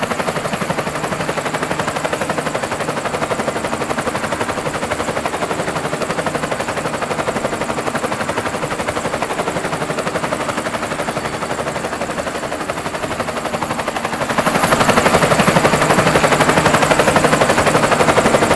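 Helicopter rotor blades chopping rapidly and steadily with the engine running, heard from inside the cabin as it comes in to land on its pad. The sound grows louder about fourteen seconds in.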